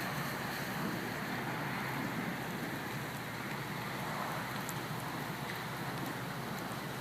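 Steady rushing noise of a storm flood: rain falling and runoff water flowing down a flooded street.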